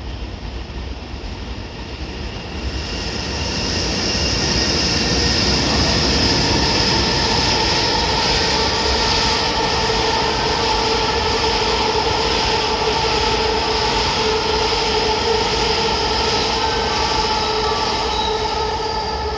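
Freight train of tank wagons passing through the station on the near track: steady wheel-and-rail noise with a high, steady wheel squeal. It builds over the first few seconds and eases off near the end.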